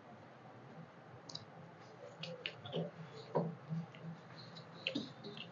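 Close-miked eating by hand: scattered soft clicks and wet smacks of chewing and of fingers mixing rice and chicken curry on metal plates.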